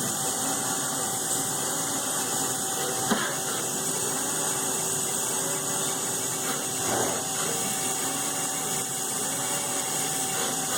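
Mazak CNC milling machine running, cutting delrin dry without coolant: a steady whir with a faint steady whine and a few brief sweeps in pitch.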